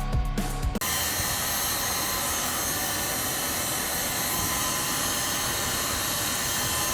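Background music cuts off abruptly under a second in, giving way to a steady, even rushing noise.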